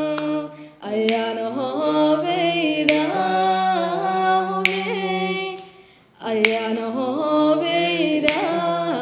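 A song: long, held sung lines over a steady low note, with a few sharp beats. The singing breaks off twice, about half a second in and again around five and a half seconds, before starting up again.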